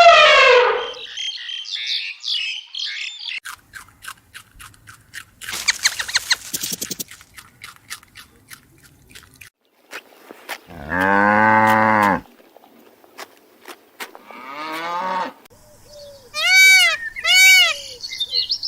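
A series of different animal calls, one after another. It begins with chirps and a run of sharp clicks, then a cow moos once for about a second and a half around the middle. Near the end come short, arched calls, repeated about every three-quarters of a second.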